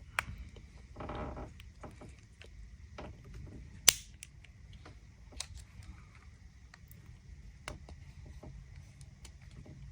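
Scattered light clicks and taps of a small screwdriver prying at the plastic clips of an ignition coil connector, with one sharper click about four seconds in.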